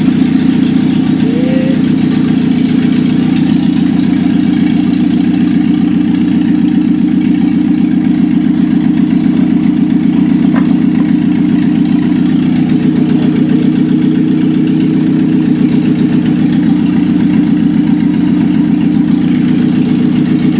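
Engine running without any exhaust fitted, idling steadily and loudly on an open test stand.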